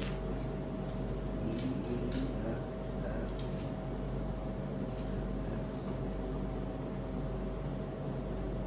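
Steady mechanical hum, like a fan or similar running machine, with a few light clicks in the first few seconds.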